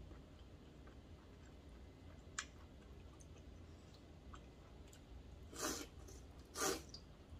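Two slurps of cold buckwheat noodles (memil guksu), the second louder, about a second apart near the end. They follow a single short click about two seconds in.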